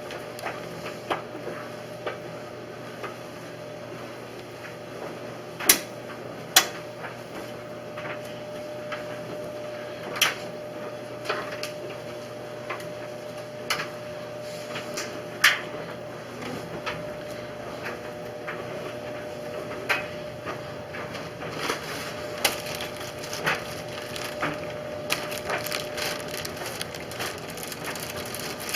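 Scattered clicks, knocks and clatter of household items being handled during kitchen cleaning, coming more often toward the end, over a steady hum with a held tone that stops near the end.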